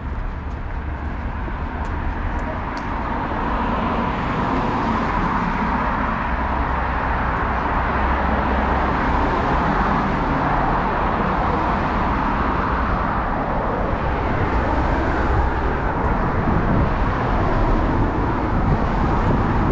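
Road traffic noise from cars passing on the street alongside: a steady rush with a low rumble that grows a little louder about three seconds in.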